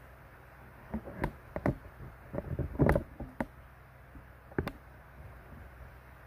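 Handling noise from the recording device being moved: a quick cluster of knocks, taps and bumps, then one more knock about four and a half seconds in, over quiet room tone.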